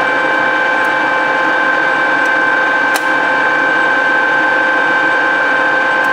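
Toolmex engine lathe running steadily, its geared drive giving a constant whine made of several steady tones. A few faint light clicks, the sharpest about three seconds in.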